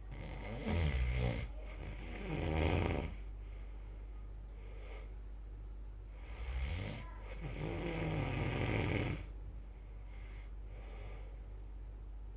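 A person snoring: two rattling snoring breaths, each in two parts, about six seconds apart.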